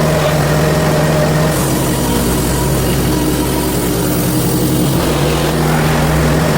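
Portable bandsaw mill's petrol engine running steadily. From about a second and a half in until near the end its pitch sags slightly and a high hiss comes up, as the band blade takes a load, then the engine settles back.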